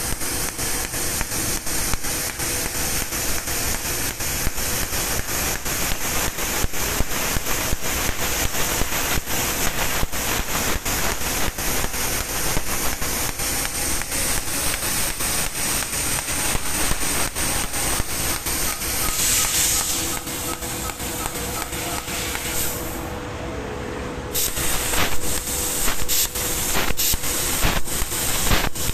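3000 W fiber laser cutting machine cutting thin steel sheet: a steady hiss of assist gas from the cutting head, broken by frequent sharp ticks as it cuts one short slot after another, over a steady hum. The hiss drops out briefly about three-quarters of the way through, then returns.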